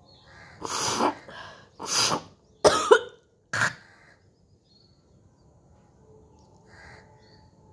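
A woman coughing and hawking hard to bring up thick phlegm: four harsh bursts within about four seconds, the third the loudest. This is a productive, congested cough from a cold, raising thick greenish mucus.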